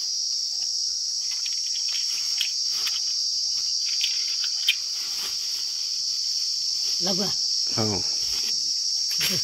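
A steady, high-pitched drone of insects, with a few soft clicks and one sharper click about halfway through.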